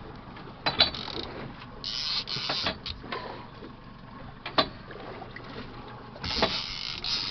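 Fishing reel being cranked under the load of a hooked king mackerel: mechanical whirring of the reel's gears, with several sharp clicks along the way.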